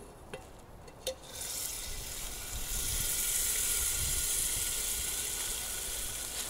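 Two light metal clinks as the stainless billy can is handled and set down, then a loud, steady hiss that starts about a second in and carries on for several seconds.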